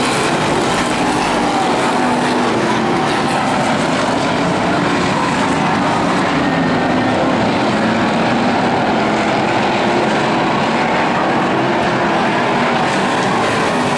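Hobby stock race cars racing on a dirt oval: the engines of the field run together in a loud, steady drone.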